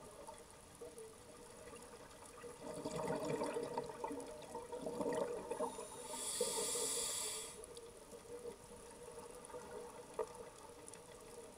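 Scuba diver breathing through a regulator underwater: a gurgling bubble exhale lasting about three seconds, then a hissing inhale of about a second and a half, with quieter bubbling after.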